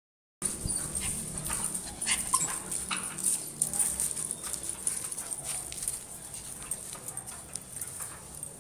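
Small dog giving short yips and whimpers, fading toward the end.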